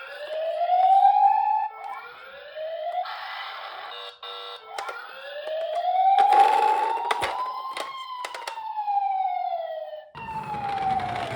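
Toy minicar's electronic siren wailing: two short rising sweeps, then one long sweep that rises and falls, with a few sharp clicks.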